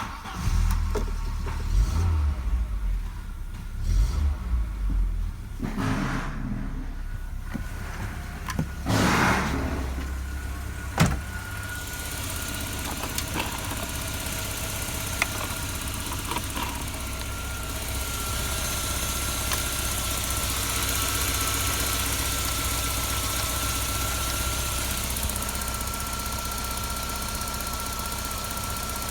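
Audi 100 C4's 2.0-litre ABK inline-four petrol engine starting up and running, uneven with a few rises in revs over the first ten seconds or so, then settling into a steady idle with a faint constant whine.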